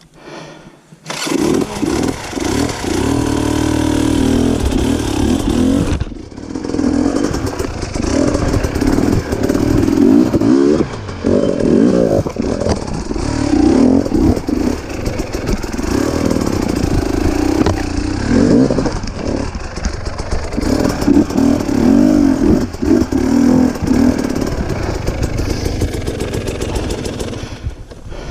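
Dirt bike engine revving up and down in repeated bursts, starting about a second in, as the bike works its way up a rocky waterfall under load.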